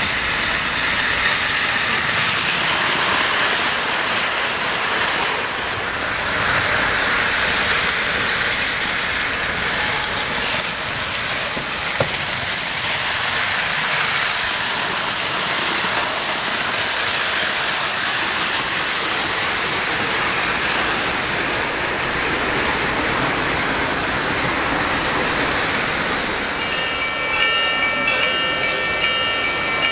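O-scale three-rail model trains running on the layout's track, a steady running noise. Near the end a model steam locomotive's onboard sound system blows its whistle, several steady tones held together as a chord.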